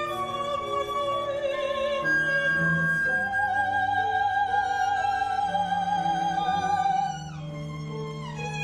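Operatic female voice singing with wide vibrato over instrumental accompaniment. She holds one long note for several seconds, and a falling slide in pitch follows near the end.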